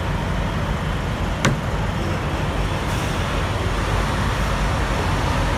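Steady low rumble of idling diesel semi-truck engines, with one sharp click about one and a half seconds in.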